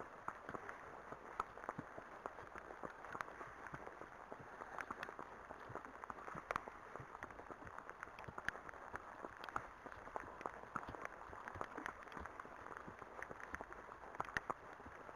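Horse hooves clopping at a walk on a tarmac lane, as short irregular knocks, over a steady background hiss.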